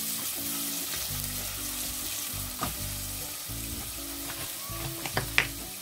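Chopped onion sizzling steadily as it fries in vegetable oil in a stainless steel pot, stirred with a spatula. A few light knocks come near the end.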